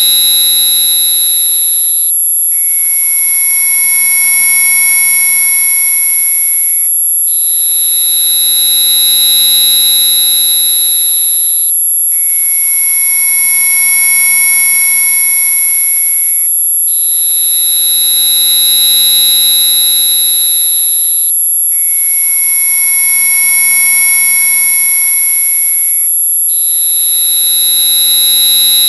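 Electronically generated high-pitched tones sold as mosquito-repellent audio: a chord of several steady tones that switches between two pitch sets about every five seconds, with a brief gap between each. The sound is loud and piercing.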